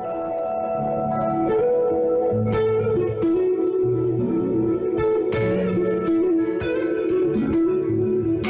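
Ibanez GRG270 electric guitar with Seymour Duncan '59 pickups (SH-1N neck, SH-1B bridge) played on a clean tone with a lot of delay. Single picked notes ring out and their repeats overlap into a continuous wash. It swells up from near silence at the start.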